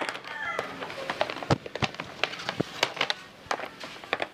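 Irregular clicks, taps and light knocks from handling a battery charger's cable leads and metal clamps.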